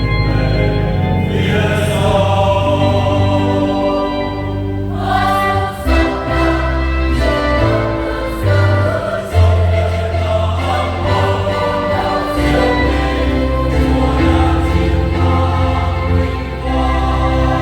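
A choir singing an Easter hymn in sustained chords over low accompanying notes.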